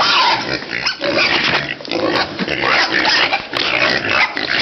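A group of piglets squealing and grunting over one another without a break, excited at feeding time.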